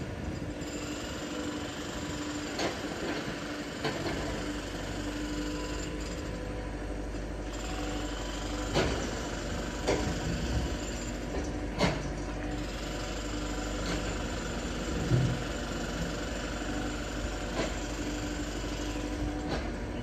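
Construction-site ambience: a steady low mechanical hum with about half a dozen sharp knocks scattered through it, and high chirping that fades in and out.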